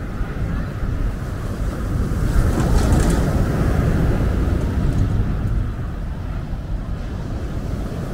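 Sea waves breaking on a pebble beach: the surf swells to a crash about two and a half seconds in and then washes back, over a steady low rumble.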